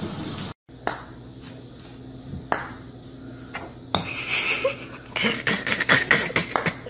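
Sharp clicks of a putter striking golf balls on an indoor putting mat, a few seconds apart, then a quick run of clicks and clatter near the end.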